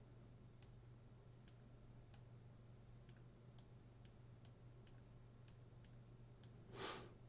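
Faint computer mouse button clicks, about a dozen, spaced roughly half a second apart and coming a little faster in the second half, as short pen strokes are drawn one by one. A short breath-like rush of noise near the end is the loudest sound.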